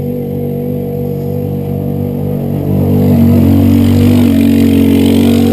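212cc single-cylinder small engine running steadily, getting a little louder about three seconds in.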